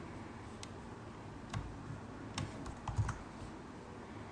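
A handful of separate clicks from a computer keyboard and mouse, about six at uneven intervals, over a low steady background hiss.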